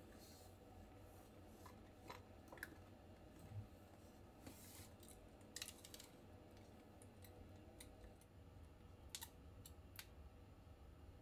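Near silence with faint, scattered clicks and brief rustles: a bag and boxes being handled and shifted on a closet shelf.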